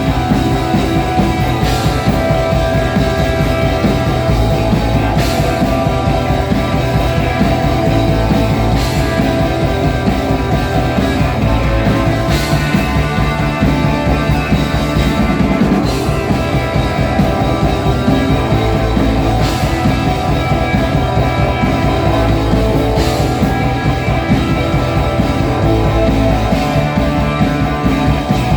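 Rock music with distorted guitars, bass and drums playing an instrumental passage with a steady beat and no vocals.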